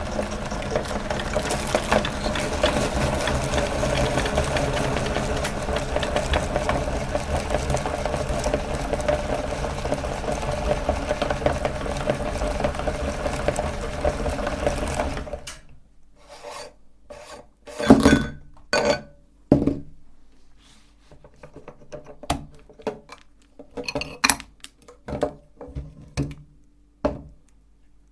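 Meat grinder running with a steady rasping grind over a motor hum, stopping abruptly about halfway through. Then comes a series of scattered sharp clicks and knocks.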